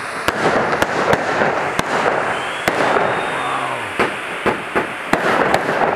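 Firework fountain (a 'volcano') hissing steadily, with about ten sharp cracks and pops scattered irregularly through it from crackling effects.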